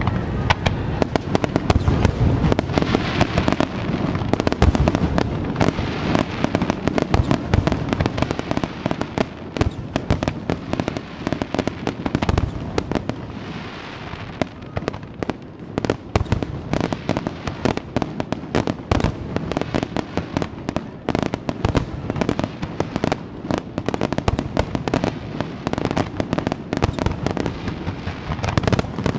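Fireworks display, with aerial shells bursting in a rapid, near-continuous run of bangs and crackles.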